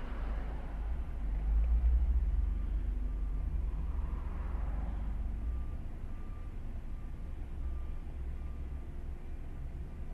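Road traffic passing close by, heard from inside a stopped car over the low rumble of idling engines. The rumble is loudest about two seconds in, and a second car goes by around four to five seconds.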